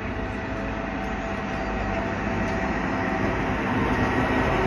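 Diesel engine of a yellow railway track-maintenance machine running as it travels along the line, a steady drone that grows louder as it approaches.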